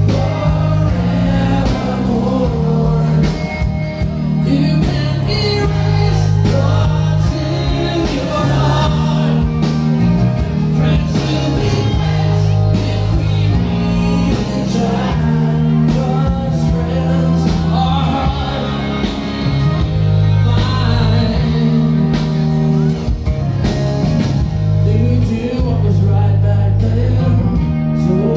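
A rock band playing live, with a singer's voice over electric and acoustic guitars, bass and drums.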